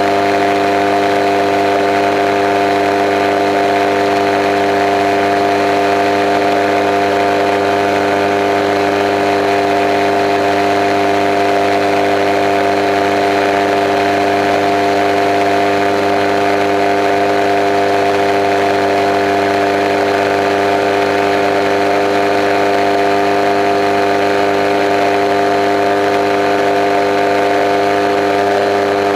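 Kolb Kolbra ultralight's engine and propeller droning steadily in cruise flight, heard from inside the cockpit, with a constant rushing hiss above the drone.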